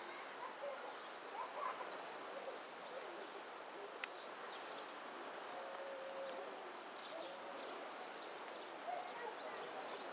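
Outdoor ambience: a steady hiss with faint, scattered bird calls, and a single sharp click about four seconds in.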